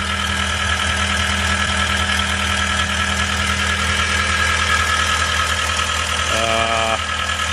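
John Deere 320D skid steer's 2.4-litre four-cylinder PowerTech diesel engine idling steadily.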